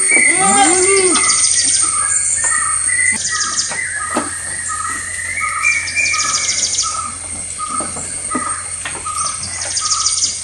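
Birds chirping: one short chirp repeats steadily a little under a second apart, with bursts of rapid high trills and a few swooping calls in the first second, over a steady high-pitched whine. Scattered short crisp clicks sound beneath, fitting goats tearing and chewing fresh grass at the trough.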